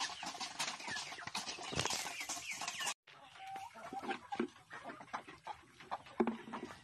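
A flock of chickens clucking, over many quick clicks of beaks pecking and feet scratching at feed on a dirt floor. The sound drops out for a moment about three seconds in.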